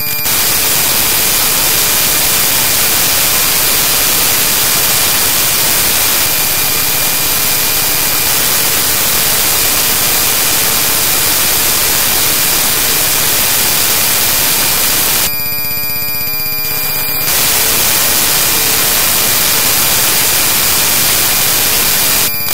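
Loud, steady static hiss of corrupted digital audio, with a few faint steady tones running through it. About fifteen seconds in it turns for roughly two seconds into a buzzy noise with a fast, even pattern, then goes back to hiss.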